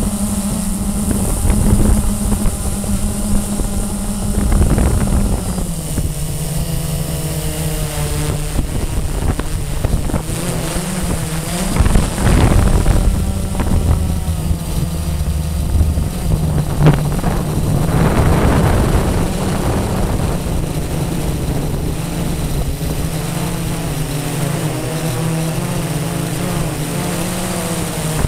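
Blade 350 QX quadcopter's electric motors and propellers humming steadily in flight, the pitch stepping down about five seconds in. Gusts of wind buffet the microphone now and then.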